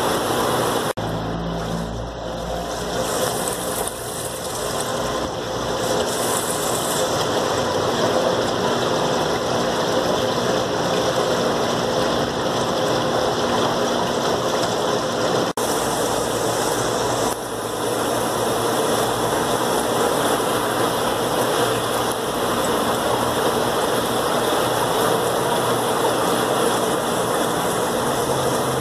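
Steady hum and rushing water of aquarium filters and air pumps running, with a couple of brief dropouts.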